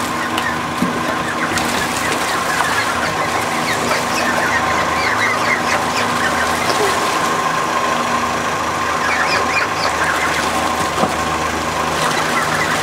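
Young mallard ducks peeping, many quick high rising chirps coming in bunches, over a steady tone underneath.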